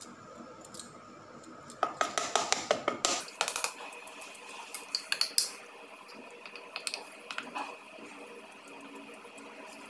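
Steel spoon clinking and scraping against a stainless steel plate as thick barfi mixture is spread and smoothed with the back of the spoon. A quick run of clinks comes about two to three and a half seconds in, more around five seconds, and a few near seven seconds.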